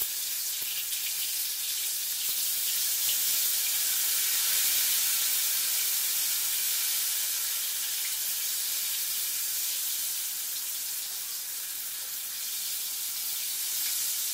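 Stuffed brinjals frying in hot oil in a small pan, a steady sizzle.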